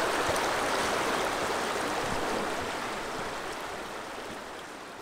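Rio Grande river water rushing past in a steady noisy flow, fading away gradually over the second half.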